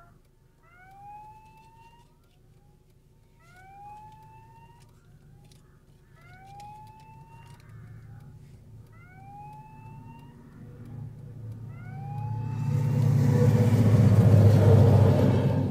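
Level-crossing warning sounder giving a rising whoop about a second long, repeated every two and a half seconds. About twelve seconds in, a train arrives and passes close by, its deep rumble growing loud and drowning out the warning.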